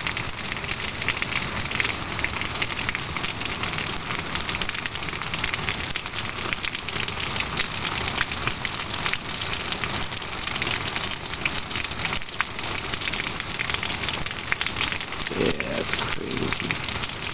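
Heavy rain falling steadily, raining like crazy, with a dense patter of many drops striking close by.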